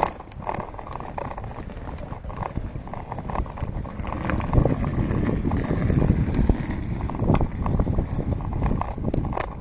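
Riding noise from a bicycle on a wet street: wind on the handlebar-mounted camera's microphone and the tyres on tarmac, with many small clattering knocks from the bike. It grows louder from about four seconds in.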